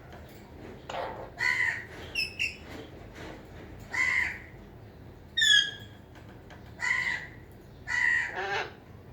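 Parrots giving about eight short calls at irregular intervals, some sliding down in pitch.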